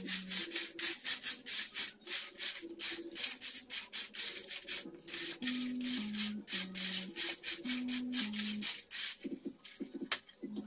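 Quick, hissy back-and-forth rubbing strokes, about four or five a second, like hand sanding, stopping near the end, over background music with a stepping bass line.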